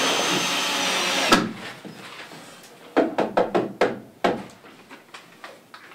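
Cordless drill-driver driving a screw into timber, its motor running steadily for about a second before stopping with a click. About three seconds in comes a quick run of sharp wooden knocks, about six.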